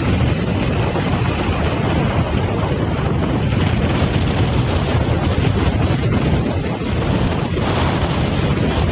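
Strong wind buffeting the microphone: a loud, steady rumbling noise.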